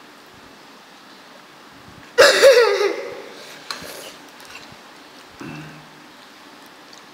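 A child's short, high-pitched vocal outburst about two seconds in, falling in pitch as it fades. The rest is faint background hiss with a couple of small soft sounds.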